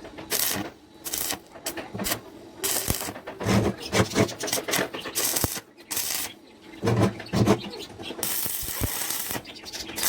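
Workshop metalworking noises: irregular bursts of metallic clattering and scraping, then a steady hiss for about a second near the end.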